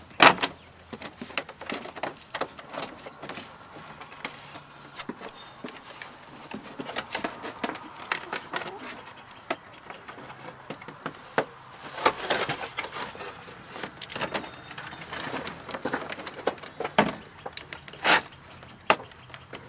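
Plastic door trim panel of a 1991 Ford F-150 being worked loose and handled, with its clips and switch parts: irregular clicks, knocks and rattles, the loudest a sharp snap just after the start and a few more in the second half.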